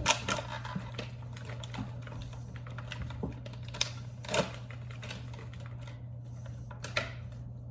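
Crinkling and clicking of a treat's packaging being handled and opened: scattered sharp crackles, with a few louder ones near the start, about four seconds in and near the end, over a steady low hum.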